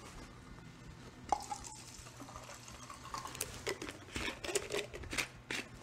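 Water poured from a plastic bottle into a small plastic cup. The trickle starts about a second in, and its pitch rises for about two seconds as the cup fills. It is followed by light clicks and crinkles of plastic being handled.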